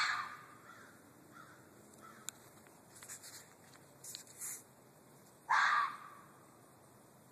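A fox screaming: one harsh scream right at the start, dying away within half a second, then a second, louder scream of about half a second some five and a half seconds in. Fainter short sounds come in between.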